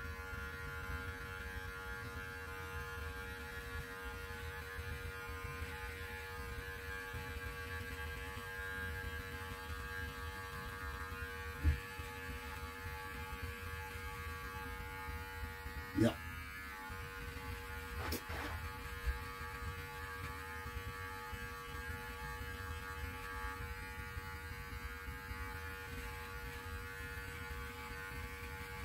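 Electric beard clippers running with a steady buzzing hum as they cut through a long beard, with a few brief knocks and clicks partway through.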